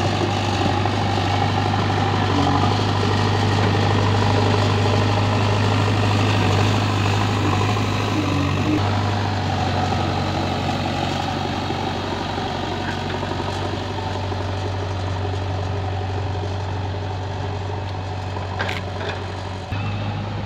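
JCB backhoe loader's diesel engine running with a steady low drone as the machine pushes soil with its front bucket and drives over the dirt, a little louder in the first few seconds. A single short click sounds near the end.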